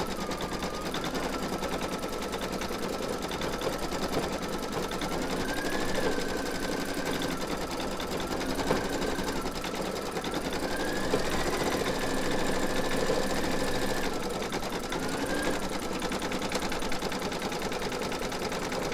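Computerized embroidery machine stitching out a free-standing lace design on water-soluble stabilizer: a steady rapid needle clatter under a motor whine that steps up and down in pitch every few seconds as the stitching changes.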